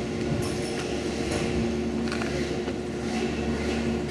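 Steady machinery hum from the gondola terminal, holding two constant tones over a low rumble, with a few faint light clicks.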